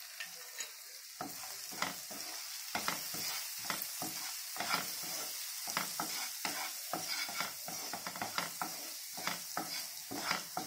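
A spatula stirring vegetables in a non-stick frying pan, scraping and tapping in quick irregular strokes from about a second in. Underneath is the light sizzle of the vegetables sautéing in oil.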